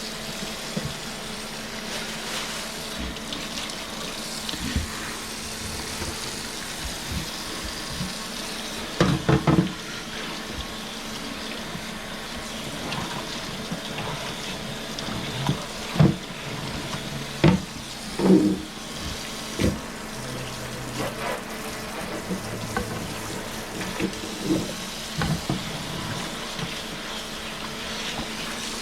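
Kitchen tap running steadily into a sink, with scattered clatters and knocks of handling in and around it.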